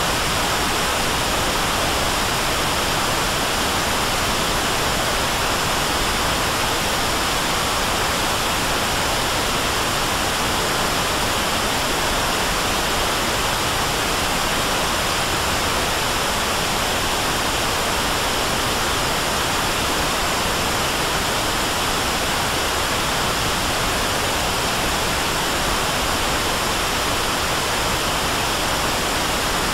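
Analog television static: the steady hiss of a TV tuned to a channel with no signal, even and unbroken.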